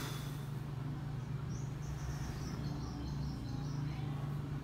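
Room tone with a steady low hum. From about a second and a half in, a short run of faint high chirps steps downward in pitch for about two seconds.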